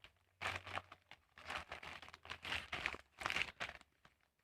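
Packaging crinkling and rustling in irregular short bursts as a parcel is handled, stopping shortly before the end.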